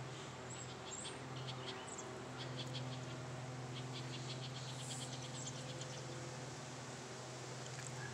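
Small birds in the trees giving high chirps and quick trills, over a steady low hum.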